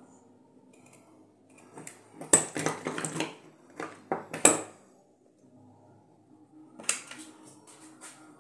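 Metal parts of a disassembled electric drill clattering and knocking as the motor and gear assembly is handled and set down on a hard surface. The clatter comes in two bursts of clicks and knocks, the loudest about halfway through.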